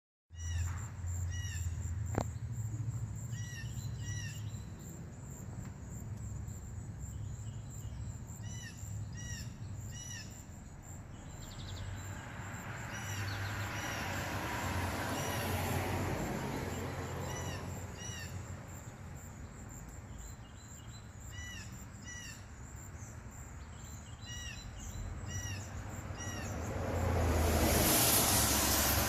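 A bird repeating short, clipped calls in quick groups of two to four notes, over a steady low hum; a rushing noise swells up in the middle and again, louder, near the end.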